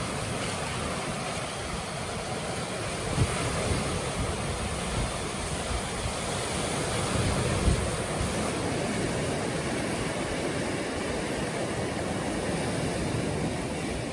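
Steady rushing of wind and breaking waves, with gusts of wind buffeting the microphone in low rumbles.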